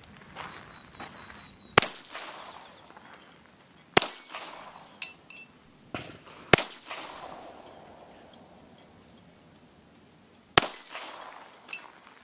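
Four single shots from a High Standard Sport King .22 LR semi-automatic pistol, spaced a few seconds apart, each with a short echoing tail. Between and after the shots come lighter metallic clangs with a brief ring, from the small steel spinner targets being hit.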